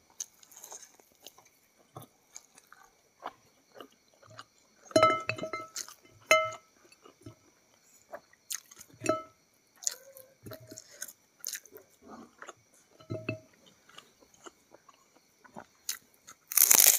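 Close-up eating sounds of a person eating with her fingers: chewing, small mouth clicks and smacks, then a loud crunchy bite into crisp fried food near the end.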